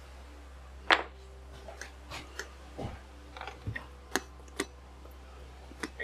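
Metallic clicks and taps from a 2009 GMC Sierra 1500's starter drive as it is worked by hand on the bench, testing the pinion gear's return spring. One sharp click about a second in, then about a dozen lighter, irregular clicks.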